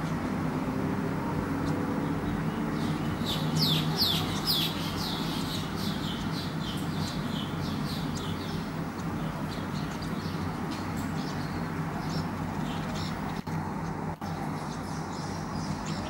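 Weaver bird singing: a rapid run of short, falling chirps that starts about three seconds in, loudest at first, then thinning into fainter repeated notes. A steady low background noise runs underneath.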